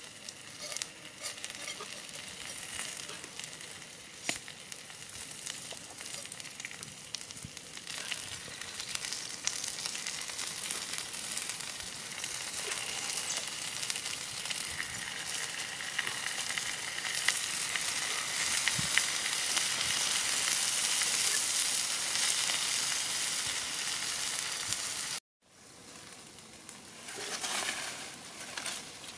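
Whole tire track eels sizzling on a hot flat stone over a wood fire, a steady hiss full of small crackling pops that grows louder about a third of the way in. It cuts off abruptly near the end and gives way to a short rustle.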